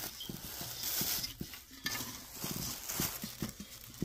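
Rustling and crinkling of rolled paper banknotes and a plastic sheet as a hand pulls the bills out through the opening of a piggy bank, with scattered light knocks.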